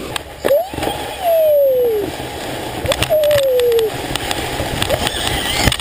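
Plastic sledge scraping and hissing over thin snow and grass as it is towed along. Over it, a toddler's voice gives two long calls, each falling in pitch.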